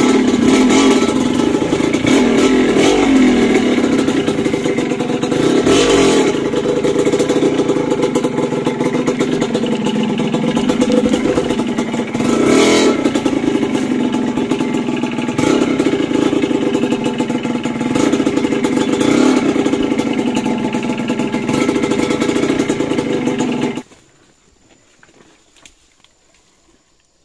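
Motorcycle engine running under way, its pitch rising and falling several times as it revs up and eases off. It cuts off suddenly about 24 seconds in, leaving only faint sound.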